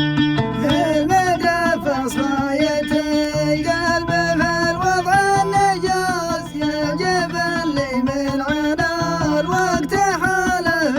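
Arabic song: a male voice singing a wavering, ornamented melody over plucked-string accompaniment with sustained low notes beneath.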